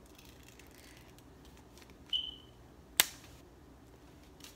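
Quiet handling of a paper wax strip: faint rustling and light clicks, a short high squeak about two seconds in, and a single sharp click about three seconds in.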